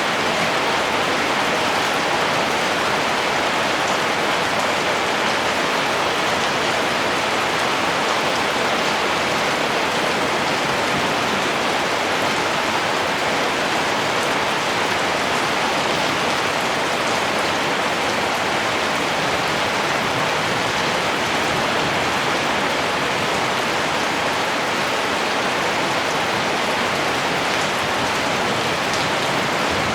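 Heavy rain falling steadily: a dense, even hiss of countless drops that holds at one level throughout.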